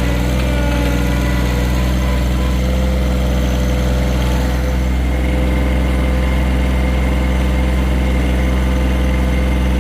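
John Deere 1023E compact tractor's three-cylinder diesel engine running at a steady speed.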